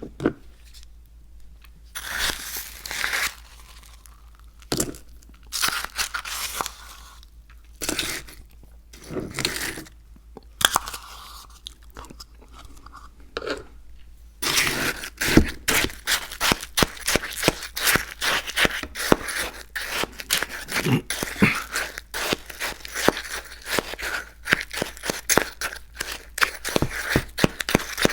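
Close-miked crunching and chewing of crunchy cookies: separate bites and chews every second or two, then from about halfway a dense, rapid run of crunching.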